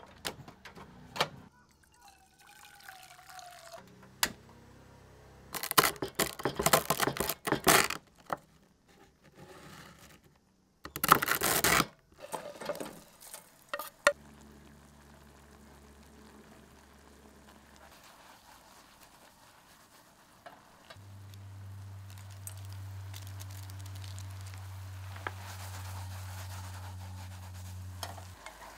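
Water poured into a pan on a portable gas stove, with a few loud brief handling noises. Later a steady bubbling as dry instant ramen noodles cook in shallow simmering water.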